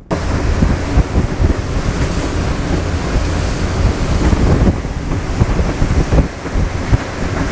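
Wind buffeting the microphone over the rush of water past the hull and the steady drone of the motor yacht's twin MTU diesel engines at cruising speed, about 14 knots.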